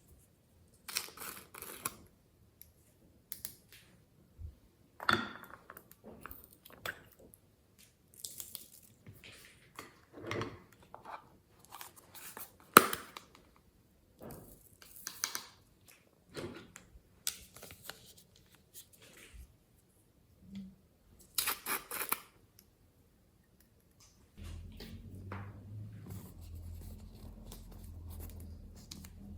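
Glossy slime being squished, stretched and folded by hand, giving short wet crackling and popping squelches in separate bursts. About 24 seconds in, a steady low hum begins underneath.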